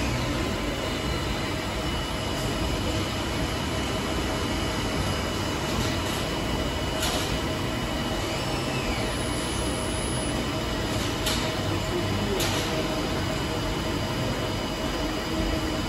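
Okuma LT10-M CNC lathe running, a steady mechanical hum with a constant high whine, broken by a few sharp clicks in the second half.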